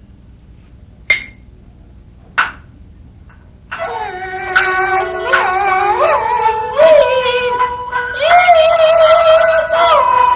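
Chinese opera accompaniment. Two sharp single percussion strokes come first, then about four seconds in the instrumental ensemble enters with sustained melodic lines that slide between pitches and keep going.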